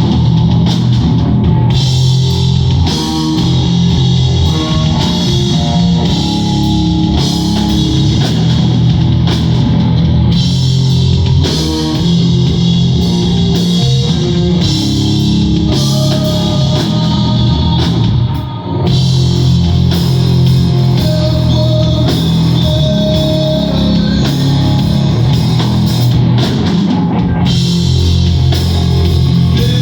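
Live rock band playing an instrumental passage: electric guitar over a drum kit, loud and dense throughout, with a brief dip in level a little past halfway.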